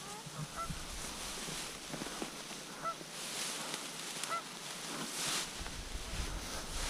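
Geese honking: a few short calls spaced a second or more apart, over the swish of tall reeds and grass brushing past someone walking through them.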